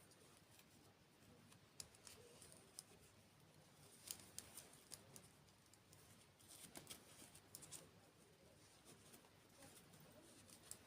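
Faint eating sounds: scattered small, crisp clicks and crackles of chewing and mouth sounds, in irregular clusters.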